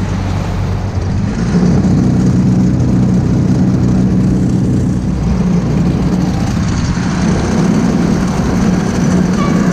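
Tohatsu 15hp outboard motor running steadily under way on an inflatable boat. Its note steps up a little about a second and a half in.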